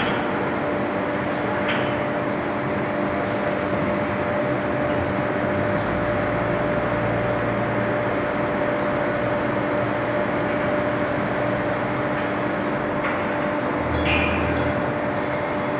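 A square steel billet induction heating line running: steady machinery noise with a constant hum, and a couple of brief clanks.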